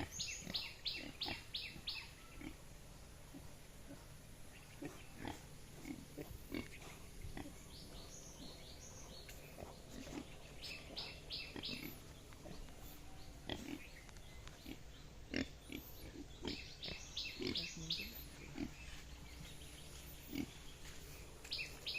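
Yorkshire-cross pigs and piglets grunting, with runs of quick, high, short squeals every few seconds.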